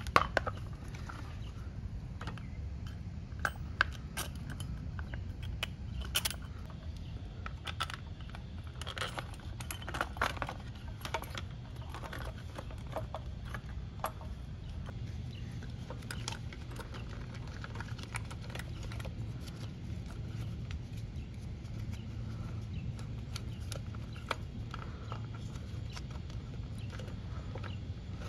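Hands handling small engine parts: scattered clicks and light rattles of plastic and metal as the air-filter housing is fitted onto the carburetor of a Honda pressure-washer engine, with a cluster of clicks about ten seconds in, over a steady low rumble.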